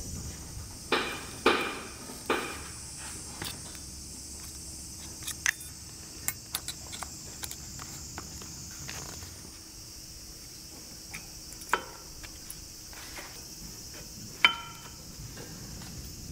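Scattered metal clicks and knocks of new brake pads, shims and caliper parts being handled and fitted into a front brake caliper, the sharpest in the first few seconds and near the end, over a steady high hiss.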